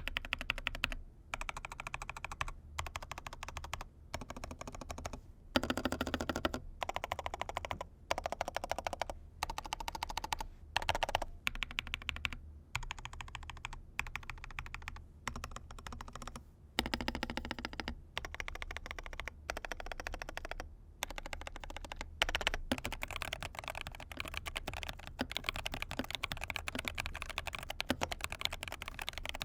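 Typing on a mechanical keyboard with KTT Baby Pink linear switches, fast runs of keystroke clacks in short bursts with brief pauses. The typing becomes nearly continuous about two-thirds of the way through.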